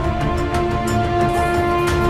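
Music: held notes over a steady beat.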